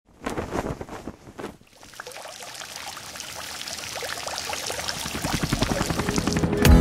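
Water from fountain jets splashing and pattering, growing steadily louder. Music with a beat comes in at the very end.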